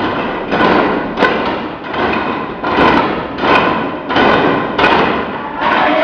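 Wooden sticks struck together in a steady beat, about one stroke every three-quarters of a second, each stroke sounding with a shaken rattle.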